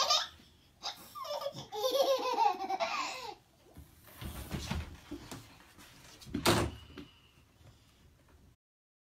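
Baby laughing, a rising squeal near the start and then a run of giggles over a couple of seconds, with a few short knocks and a louder one about six and a half seconds in.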